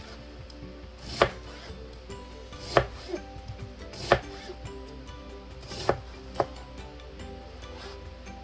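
A kitchen knife slicing through an onion and striking the cutting board, about six sharp taps spaced one to two seconds apart.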